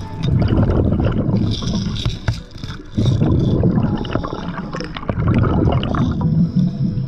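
Fishing lures rattling and clicking inside a container shaken underwater, heard through an action camera's waterproof housing. They come in three surges of low, churning water noise with many sharp clicks through them.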